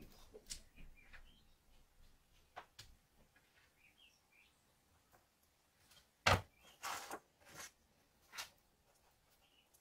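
Small clicks and taps of steel handle pins and a wooden knife-handle scale being handled on a wooden workbench, with one sharp knock about six seconds in and a few lighter knocks after it.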